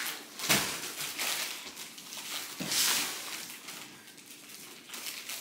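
Large cardboard shipping box being handled on a wood floor: a knock about half a second in, then irregular scraping and rubbing of cardboard, loudest about three seconds in.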